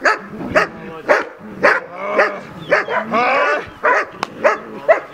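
Dog barking in a steady run of about two barks a second, with two longer, whining barks past the middle.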